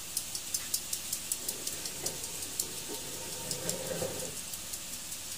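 Chicken pieces sizzling in hot oil in a wok: a steady hiss with frequent small crackles and pops, which thin out after about four seconds.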